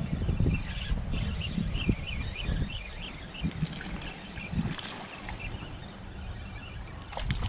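Wind buffeting the microphone with an uneven low rumble. A faint, high chirping repeats for a couple of seconds, starting about a second in.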